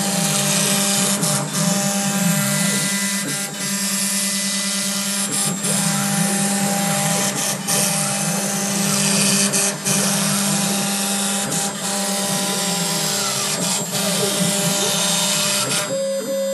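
CNC router's VFD-driven spindle milling clear polycarbonate sheet: a steady machine hum under the hiss of the cutter chewing through the plastic, with scattered sharp clicks from the cut.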